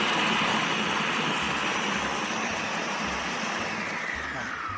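Food processor motor running at speed, blending salmorejo while olive oil is streamed in through the feed tube to emulsify it with egg. Its whine falls in pitch and eases off near the end as the motor slows.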